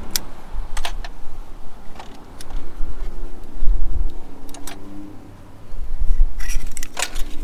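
Scattered light metallic clicks and taps of old diesel pistons, rings and hand tools being handled on a bench, with a cluster of clinks near the end, over a low rumble.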